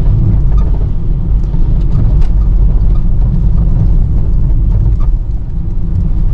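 Noise inside a moving car's cabin: a loud, steady low rumble of engine and road.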